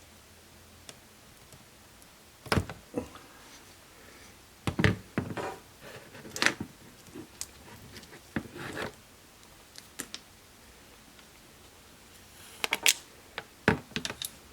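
Scattered sharp clicks and knocks of hard trimmer parts being handled and taken apart, some in quick clusters.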